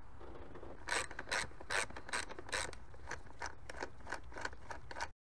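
Hand ratchet with an 8mm socket clicking as it is swung back and forth, backing out an engine-cover bolt: quick sharp clicks about two to three a second, starting about a second in and cutting off abruptly near the end.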